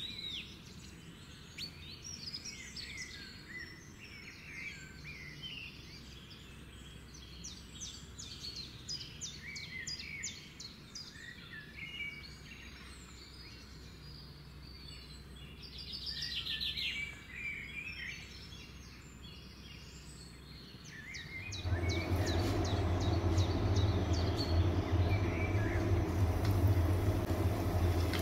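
Birds chirping again and again over a faint steady background noise. About 21 seconds in, a loud sizzle of breadcrumb-coated bread slices frying in hot oil starts and keeps going, with a steady low hum under it.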